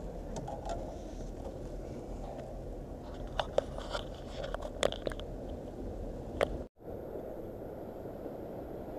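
Steady rumble of surf breaking on rocks, with a cluster of sharp clicks and knocks from gear being handled close to the microphone from about three to six and a half seconds in. The sound cuts out for a moment just after the clicks, then the surf continues.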